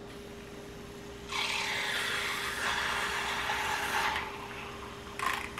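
Battery-powered handheld milk frother whirring in a glass of water, whisking in powdered drink mix. It starts about a second in and stops about four seconds in.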